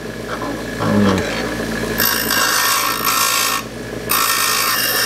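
Vevor 8-inch variable-speed bench grinder running at full speed, with a drill bit being sharpened against its wheel. Two spells of grinding hiss, from about two seconds in and again from about four seconds in, sound over the steady hum of the motor.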